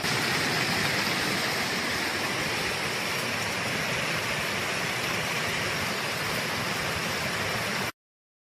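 Torrential downpour: heavy rain falling as a loud, steady, dense hiss, cutting off suddenly near the end.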